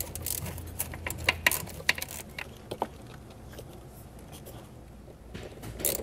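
Scattered light clicks and taps of small engine parts being handled while intake gaskets and the intake manifold are fitted, busiest in the first few seconds, then quieter. Sharper clicks start again right at the end.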